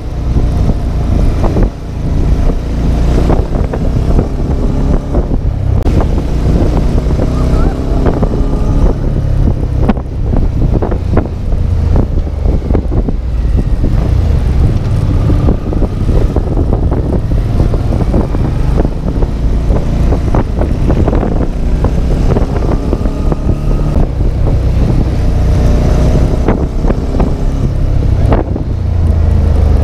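Motorcycle ride at speed: heavy wind buffeting on the microphone over a running motorcycle engine. The engine's pitch climbs several times as it accelerates.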